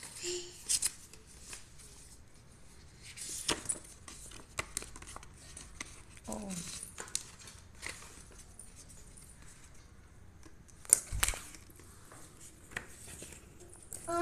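Plastic courier mailer and paper packaging rustling and crinkling as it is handled and unfolded, with scattered small clicks and one sharper knock about eleven seconds in.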